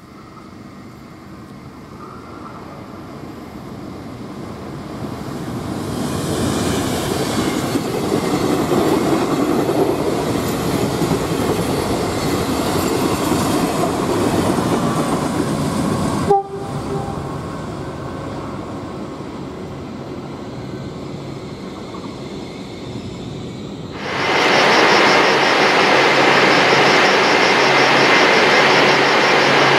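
Train running through a station. The rolling noise builds over several seconds and breaks off briefly about sixteen seconds in. Near the end it jumps suddenly to a louder, steady rush.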